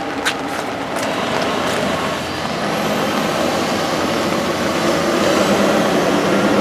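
Passing road vehicle: a steady rushing noise that grows slowly louder, with a few sharp clicks in the first second.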